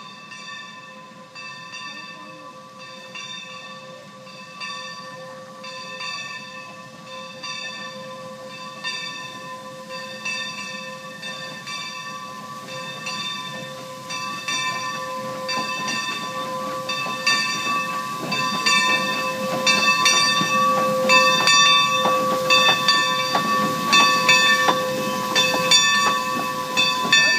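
Skunk Train No. 45, a 2-8-2 steam locomotive, pulling in with its bell ringing steadily at about one and a half strokes a second. It grows louder as it nears, and steam hiss and exhaust chuffs build up under the bell until the bell stops near the end.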